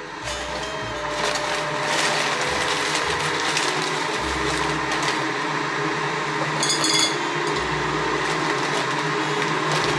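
Electric blender running steadily while making an iced coffee, with a brief glassy clink about seven seconds in.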